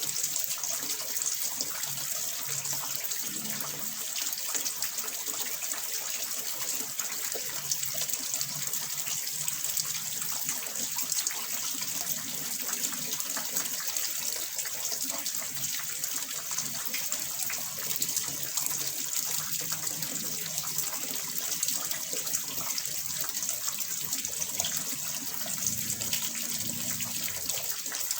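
Water splashing and trickling steadily into a small fish pond, a continuous pouring hiss with no breaks.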